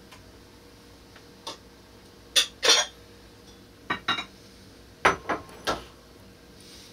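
Hard objects clinking and clattering like dishes or cutlery being handled: a faint click, then two loud clatters about two and a half seconds in, two more about four seconds in, and three near the end.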